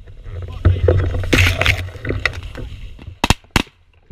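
Wind and handling rumble on a gun-mounted GoPro as the shotgun swings, then two sharp shotgun shots about a third of a second apart near the end.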